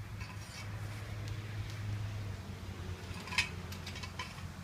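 Two short metallic clinks from hand tools on motorcycle rear-wheel bolts being snugged down, over a steady low hum.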